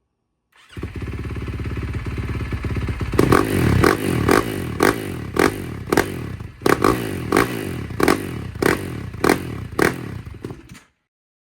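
KTM 450SMR single-cylinder four-stroke supermoto engine idling, then revved in about a dozen quick, sharp throttle blips, roughly two a second. It cuts off suddenly near the end.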